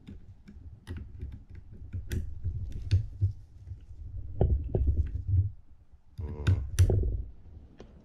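Handle nut on a Penn International II 50T reel being tightened with a flat metal reel wrench: irregular metal clicks and knocks as the wrench seats and turns on the nut, over low handling rumble. A short, fast rattle of clicks comes about six seconds in.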